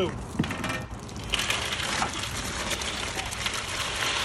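Boiled crawfish tipped from a perforated aluminum basket into the soak pot, their shells sliding and rattling against each other and the metal in a dense run of small clicks that starts about a second in.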